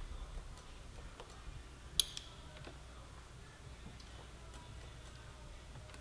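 Small clicks of hand work at a motorcycle's front brake master cylinder bleed fitting during brake bleeding: one sharp click about two seconds in, a softer one right after, and faint ticks otherwise over a low hum.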